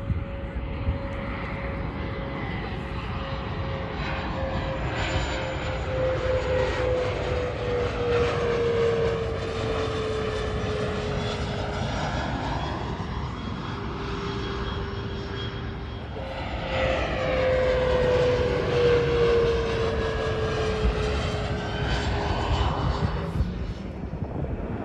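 Business jets on landing approach passing low overhead, two in turn: a jet engine whine that slides steadily down in pitch as each one goes by, over a rushing noise that swells as the jet comes closest. The second pass starts about two-thirds of the way in.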